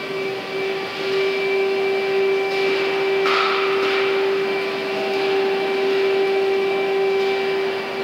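Vacuum cleaner running steadily with a constant motor whine. About three seconds in, a louder rush of air lasts for about a second.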